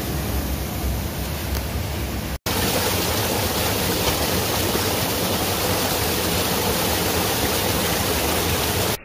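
River water rushing and splashing over rocks at close range in a steady, loud rush. The sound breaks off for an instant about two and a half seconds in, then comes back slightly louder.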